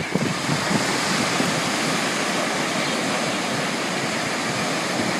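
Ocean surf breaking and washing up the beach in a steady rush of foaming water.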